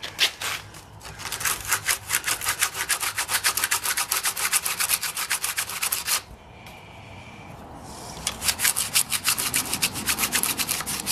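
Hand sanding of a wooden jig rail with a small piece of sandpaper: quick back-and-forth scraping strokes in two runs, with a pause of about two seconds between them. The sanding smooths down nail heads left sticking up in the wood.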